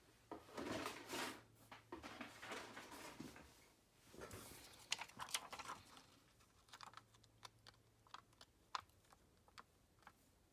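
Faint rustling, then a run of small light clicks as tweezers pick up tiny rhinestones and set them on a card.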